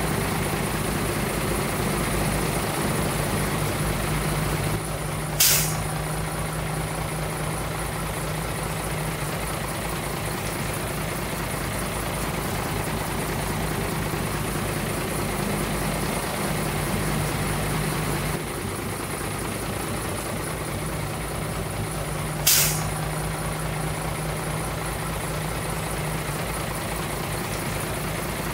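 Heavy dump truck's diesel engine running steadily, with two short, sharp air-brake hisses, about 5 s and 22 s in.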